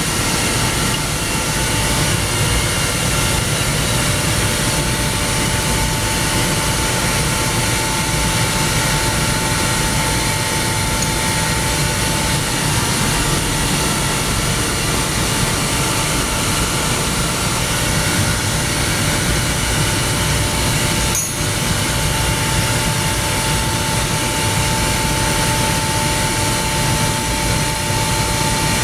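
Hitachi SRM screw air compressor running steadily: a loud, even machine noise with a steady whine over it. There is a brief click and dip about two-thirds of the way through.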